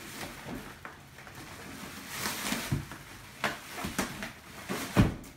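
Handling noise from a cardboard meal-kit box and its plastic-wrapped contents being rummaged through: rustling packaging and a run of irregular knocks, with a louder thump near the end.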